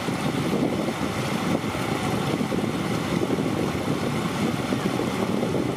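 Floodwater rushing and splashing through a gap in a low earth bank, a steady, even noise of fast shallow water.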